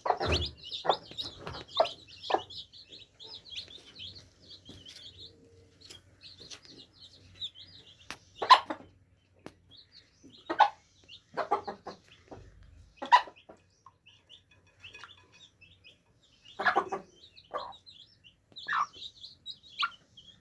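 Baby chicks peeping in a steady stream of short, high cheeps. Louder single clucks cut in now and then, several in the first few seconds and then every second or few seconds.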